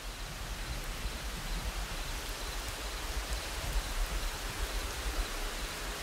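Rain ambience: a steady hiss with a low rumble underneath, gradually swelling in level.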